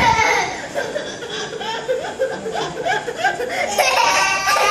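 Young child laughing in a string of short, repeated chuckles, about three a second.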